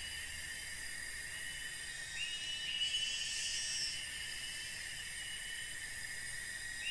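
Steady high-pitched chorus of forest insects, with a call that rises and then holds, repeating about every four to five seconds.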